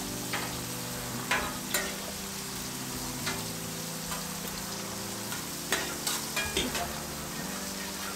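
Steak, scallops and vegetables sizzling on a hot flat-top griddle, a steady frying hiss. Over it come about half a dozen sharp clicks and scrapes of a metal knife and spatula striking and sliding on the griddle plate.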